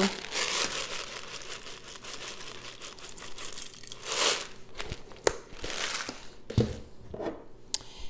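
Crinkling and rustling of a plastic jar of black peppercorns being handled and tipped, with peppercorns scooped into a small stainless steel saucepan. A louder rustling swell comes about halfway, and a few sharp knocks follow as containers are moved and set down.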